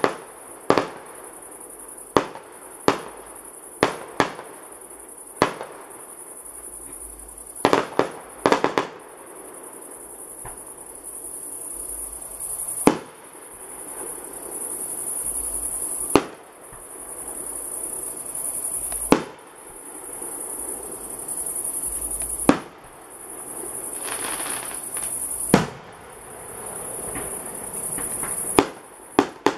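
Fireworks display: aerial shells bursting with sharp bangs, several in quick succession over the first nine seconds, then one about every three seconds, each bang trailing off in a short echo.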